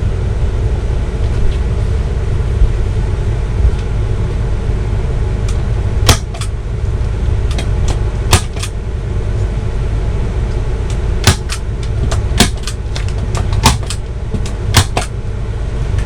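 A hammer knocking fasteners into a particle-board headboard: sharp single knocks, the first about six seconds in, then roughly one a second in the second half. Under them runs a steady low hum.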